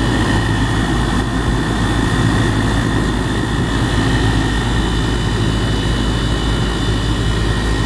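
A 2018 2.5-ton Goodman gas pack running steadily in cool mode: the compressor's low hum under the rushing of the condenser fan, with a thin steady high tone.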